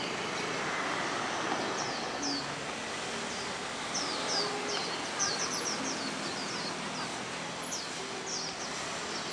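Swinhoe's white-eyes calling: short, thin, high chirps that slur downward, coming in quick clusters, thickest around the middle, over a steady background rush.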